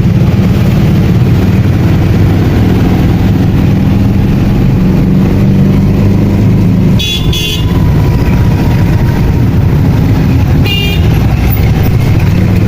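Motor traffic: a loud, steady low engine rumble, with a vehicle horn tooting twice in quick succession about seven seconds in and once more near eleven seconds.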